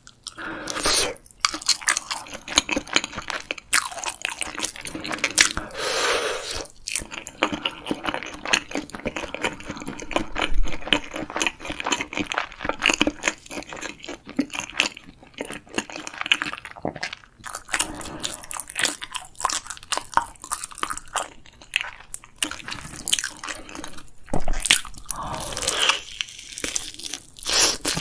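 Close-miked eating: a person bites, crunches and chews food in a dense, irregular run of crackly bites and chews.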